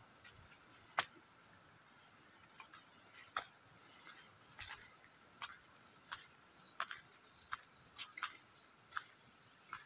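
Footsteps on a dirt forest track at a steady walking pace, about one step every 0.7 seconds from about halfway in, over faint insect chirping.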